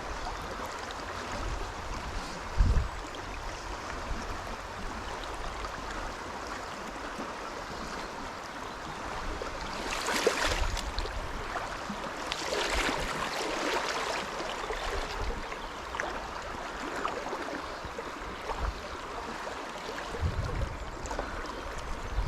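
Fast-flowing river water rushing over a shallow run, a steady noise that swells louder about ten seconds in and again a few seconds later. There is a single low thump about three seconds in.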